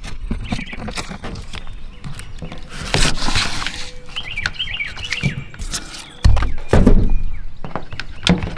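Hand-handling noise as butyl tape is worked onto a plastic cable-entry cover: rustling and scattered clicks. Birds chirp briefly in the middle, and a loud low rumble comes about six seconds in.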